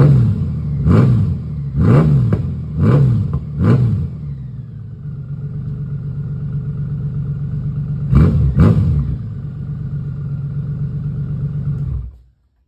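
Honda Gold Wing flat-six engine with custom-modified exhaust pipes, freshly cold-started. It is blipped sharply about once a second for the first few seconds, then idles steadily, and gets two more quick blips about eight seconds in. It is shut off suddenly near the end.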